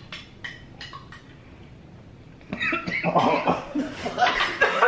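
A person coughing loudly in a rapid run that starts about two and a half seconds in, after a quieter stretch with a few faint clicks.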